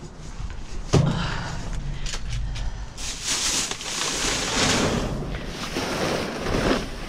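A single thump about a second in, then clear plastic trash bags rustling and crinkling as a grabber tool pulls and shifts them.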